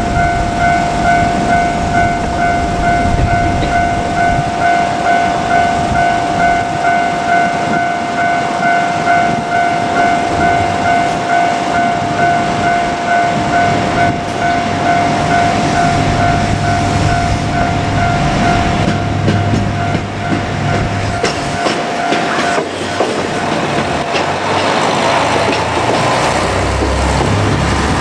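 Japanese level-crossing warning bell ringing in a fast, even repeating ding that stops about 22 seconds in. Under it in the second half, a JR Kyushu KiHa 200 diesel railcar rumbles through the crossing, followed by a broad rumble near the end.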